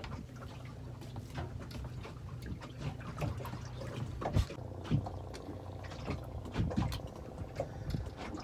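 Water slapping against a small boat's hull, with scattered knocks and bumps of someone moving about on board over a steady low hum.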